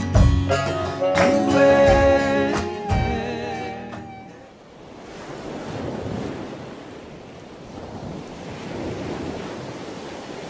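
The last notes of a song end about four seconds in, giving way to the steady wash of ocean waves, swelling and ebbing slowly.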